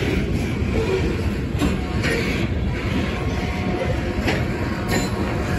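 Freight train of covered hopper cars rolling past close by: a steady rumble of steel wheels on rail, with a few sharp clacks as wheels cross rail joints.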